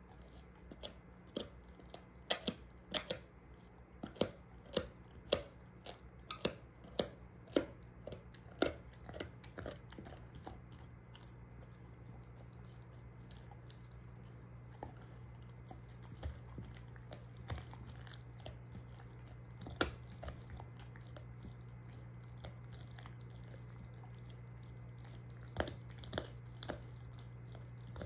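German shorthaired pointer gnawing a beef soup bone: sharp cracks and crunches of teeth on bone, coming every half second or so for the first ten seconds, then more sparsely. A steady low hum runs underneath.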